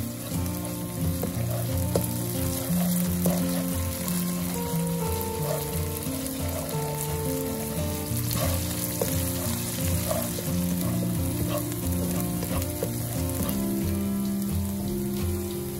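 Chopped red onion and ground chilli paste sizzling in oil in a nonstick wok, with a spatula stirring and scraping the pan in short strokes. The paste is being fried down to a sambal base. Soft background music with held low notes plays underneath.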